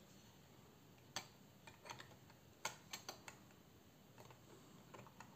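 A scattered handful of faint, light clicks and taps as the AM5 CPU socket's metal load plate and retention lever are handled by hand.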